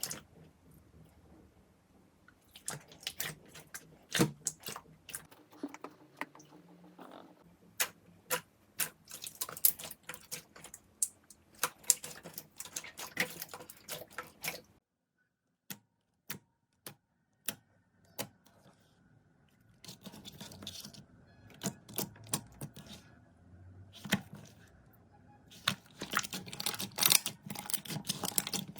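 Hands working a crunchy play material such as slime or kinetic sand, giving dense, irregular crisp clicks and crackles. It goes quieter about halfway through, then the crackling grows busier near the end.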